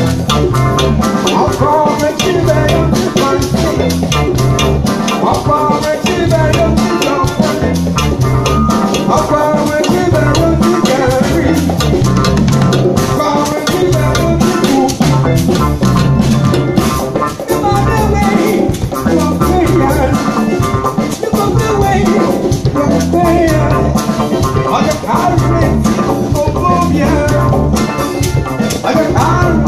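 Live Afrobeat band playing: a drum kit and a steady, rhythmic bass line under melodic instrument parts, going on without a break.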